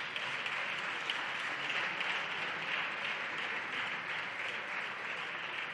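A group of deputies in their benches applauding, a steady spell of clapping that tapers off near the end.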